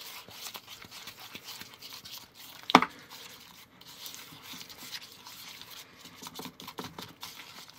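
Cake batter being stirred and scraped in a small mixing bowl with a small utensil: soft, irregular wet scraping and light ticks, with one sharp click about three seconds in.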